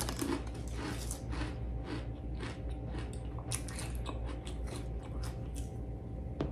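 A person chewing crunchy ridged potato chips close to a clip-on microphone, giving a run of sharp, irregular crunches.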